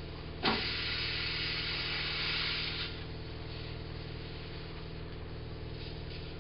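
Compressed air hissing for about two and a half seconds, starting about half a second in, as a freshly mounted tire is inflated through its valve stem with the valve core out. A steady low hum runs underneath.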